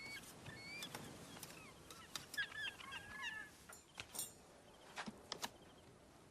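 Faint bird calls, short chirping glides, with a few soft clicks scattered through.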